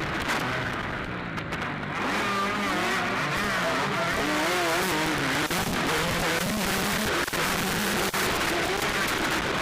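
Motocross bike engines revving up and down as they race around the track, their pitch wavering, over a constant rough noise on a poor recording.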